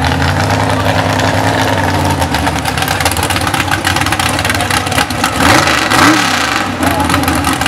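Mud bog buggy's engine running steadily, then revving up and down hard about two-thirds of the way through as it climbs over the dirt mounds.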